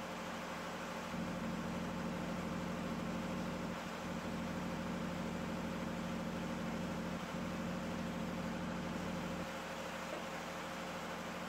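A steady low machine hum with a few constant tones, a little stronger from about a second in until near the end.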